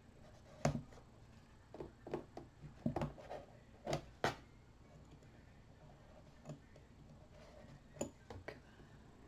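Small irregular clicks, taps and scrapes of a metal craft tool and metal brads being worked into cardstock, the prongs pressed and bent into place. The sharpest clicks come about a second in and again around three to four seconds in.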